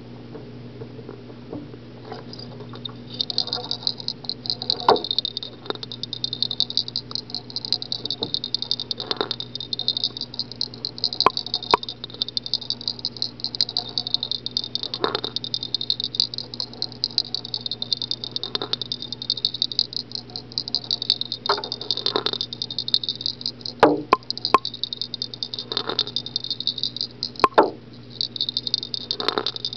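Milagro Lures' Excited Baby Bass, a vibrating fishing lure, giving off a loud, fast, high-pitched rattling buzz as it swims in water; it starts a couple of seconds in. Irregular sharp knocks and clicks cut through it.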